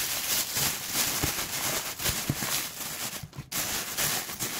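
Plastic bags rustling and crinkling as hands handle them, in dense irregular crackles.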